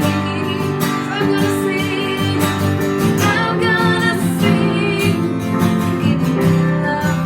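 Worship music: acoustic guitar strumming with singing.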